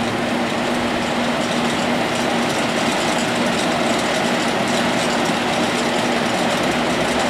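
All-metal CS-1 gyratory sifter running: a steady mechanical hum with a constant low tone under an even rushing noise.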